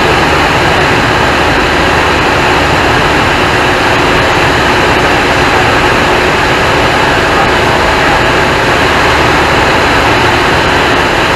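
Single-engine light aircraft's piston engine and propeller running steadily in flight, a loud, even drone heard from the cockpit.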